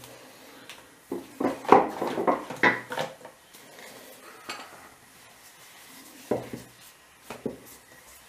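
Wooden rolling pin knocking and rolling on a marble countertop as a starch-dusted ball of dough is rolled out: a cluster of clacks in the first few seconds, a quieter stretch, then a few more knocks near the end.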